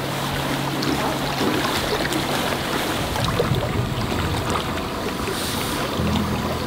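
Steady rushing noise of water and wind, with low steady tones in the first second or so and again near the end.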